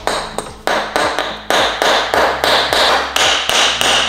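Background music with a quick, even beat of short percussive strokes over a changing bass line.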